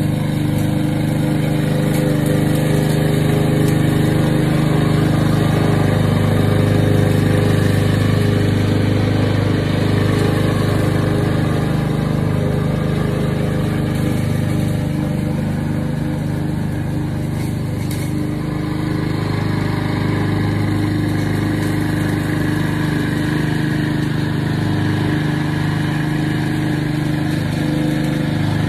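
Walk-behind gasoline lawn mower engine running steadily as the mower is pushed across the grass.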